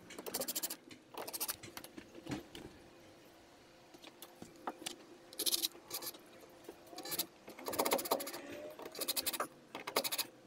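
Cordless drill driving screws through cleats into the hull, in several short bursts of rapid clicking.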